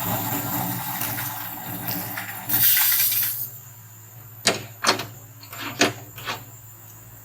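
Hot herbal lemon-and-spice brew splashing as it is poured into a teacup, with a hiss that ends abruptly about three and a half seconds in. It is followed by four or five light clinks of cup and utensils over a low hum.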